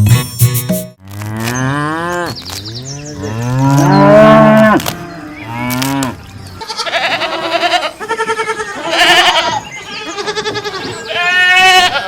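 Cattle mooing: several long, low calls that bend in pitch. From about seven seconds in, these give way to higher, quavering calls from another animal.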